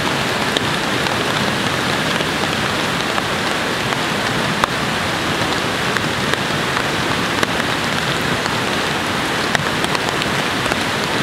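Steady rain falling: a dense, even hiss with scattered sharper ticks of single drops.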